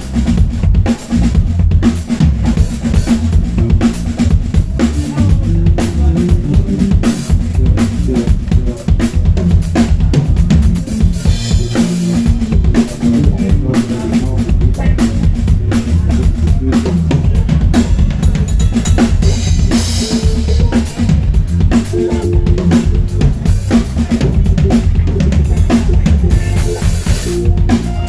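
Live drum kit played loud and busy in a drum shed: a fast, unbroken stream of kick drum, snare and rimshot hits.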